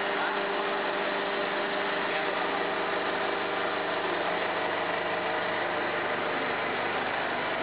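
Waste-oil vacuum distillation plant's machinery running steadily: a continuous mechanical hum with a few faint steady tones, unchanging in level.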